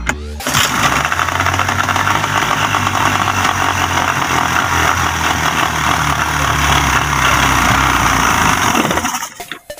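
A 40 hp Yamaha outboard motor, its cowling removed, catches about half a second in and runs steadily, then drops away near the end.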